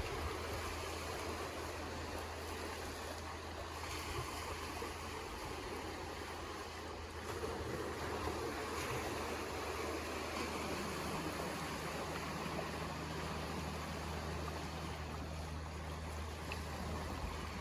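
Waves washing on the shore in a steady rush, with a steady low hum underneath that picks up a second low tone about ten seconds in.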